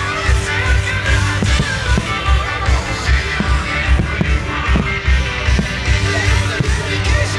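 Loud rock music with singing, guitar and a steady drum beat.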